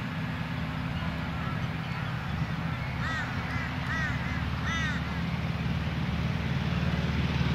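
Radial engine of a Stinson SR-9E Reliant at take-off power, a steady low drone that grows gradually louder as the aircraft rolls toward the microphone and lifts off. A bird gives a series of short squawking calls a few times around the middle.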